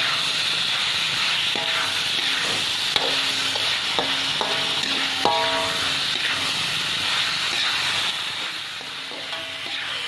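Fish, shredded ginger and spring onions sizzling steadily in hot oil in a metal pan, with a metal spatula stirring and scraping and now and then knocking against the pan.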